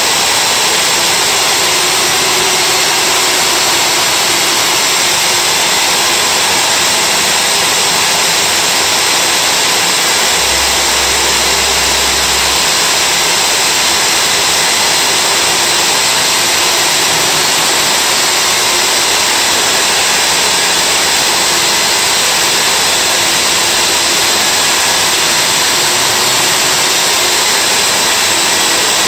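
Milwaukee core drill running steadily under load, its bit boring into the wall.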